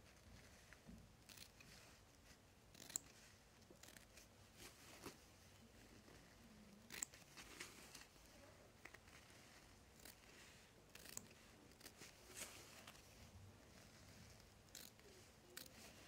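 Near silence with faint handwork on cloth: scattered small clicks and rustles, a few of them sharper, as needlework is handled.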